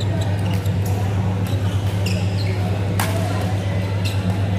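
Shuttlecock struck back and forth with badminton rackets in a doubles rally: several sharp hits, the loudest about three seconds in, with short squeaks of shoes on the court floor. A steady low hum runs under it all.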